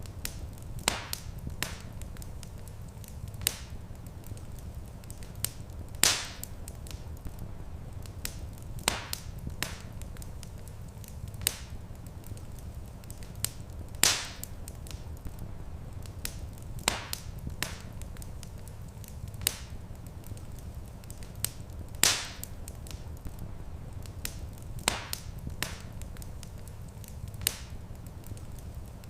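Wood fire crackling in a stone fireplace: sharp pops every couple of seconds, a few much louder about every eight seconds, over a steady low rumble.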